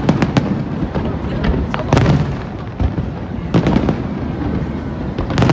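Aerial fireworks display going off: sharp bangs and deep booms every second or two, several in quick succession at the start and again around the middle and end.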